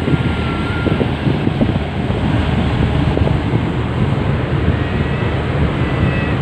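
Wind buffeting the microphone in a loud, steady rush, with a few faint thin tones partway through.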